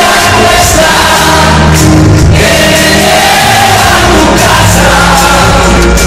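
Loud live band music with singing, heard from the audience in a large concert hall.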